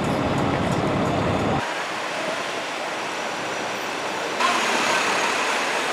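City street traffic noise heard from the top of a moving tour bus, at first with a heavy low engine rumble. It changes abruptly about a second and a half in to a thinner hiss, and again about four and a half seconds in to a brighter traffic sound, as at cuts between clips.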